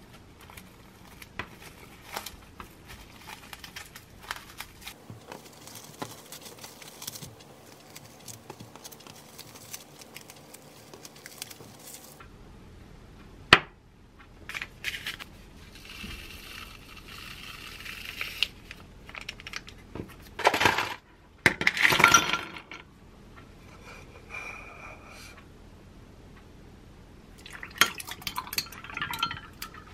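Plastic cling wrap crinkling as rice cakes are wrapped by hand. After a sharp knock of glass set on the counter, glassware clinks loudly about twenty seconds in, and milk is poured over ice in a glass mug near the end.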